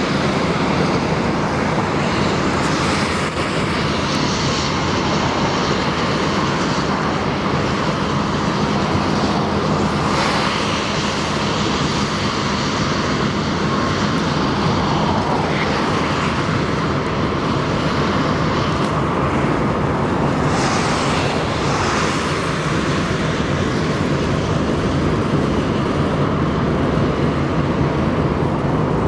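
Diesel locomotive engine running with a steady, unbroken drone.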